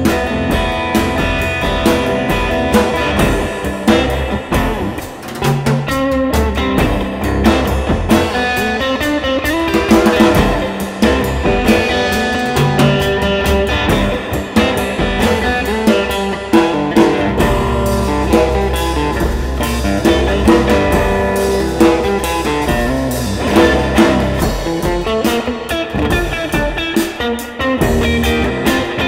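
Instrumental rock passage with no vocals: electric guitar playing over a Pearl drum kit.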